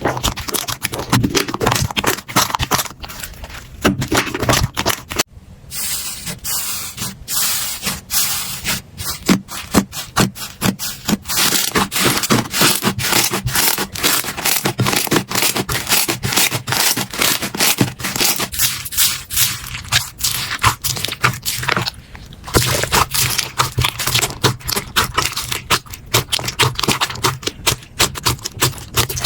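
Slime being squeezed and pressed by hand, giving a dense, continuous run of crackling clicks and pops, with abrupt changes in texture about five seconds in and again about twenty-two seconds in.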